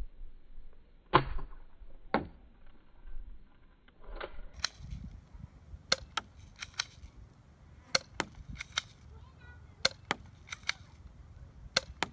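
Airsoft guns firing: a series of sharp pops, two heavier ones in the first couple of seconds, then a dozen or more sharper, snappier cracks at irregular intervals.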